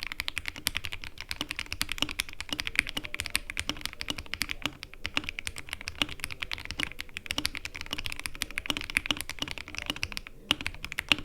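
Fast, continuous typing on a computer keyboard: a rapid stream of key clicks, with a short lull near the end.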